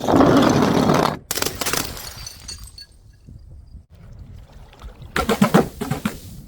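A dropped liquid-filled balloon bursting: a loud splash of liquid for about a second that stops abruptly, then a second, fading splash. Near the end there is a quick run of sharp knocks.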